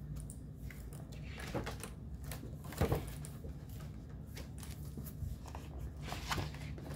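Quiet handling sounds: a few soft clicks and light paper rustling over a low steady hum, with a slightly louder knock about three seconds in.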